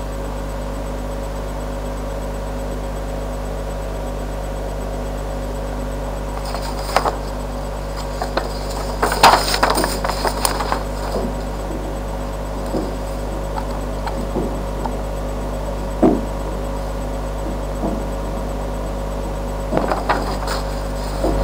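Steady electrical hum and hiss from a computer webcam or desk microphone, with a cluster of knocks, clicks and rustles of something being handled close to it through the middle, a single knock a few seconds later, and more knocks near the end.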